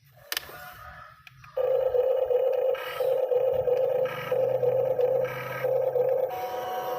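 Excavator working: after a click, a steady mechanical whine starts about a second and a half in and runs on at an even pitch over a low hum.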